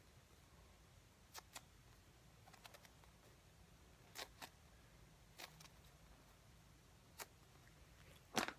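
Near silence broken by faint, scattered small clicks and taps, about eight of them a second or so apart: light handling noise.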